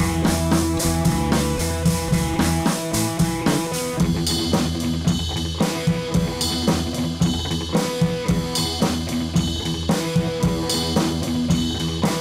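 Background music: a drum kit and guitar playing a steady beat.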